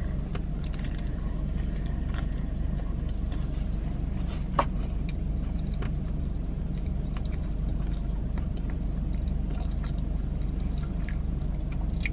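Close-up chewing and soft mouth sounds of someone eating a sandwich, over a steady low hum inside a car, with one sharp click about four and a half seconds in.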